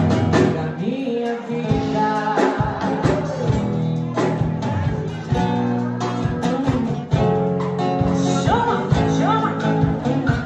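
Live band music: acoustic guitar strumming over a steady beat, with a melodic line bending over it.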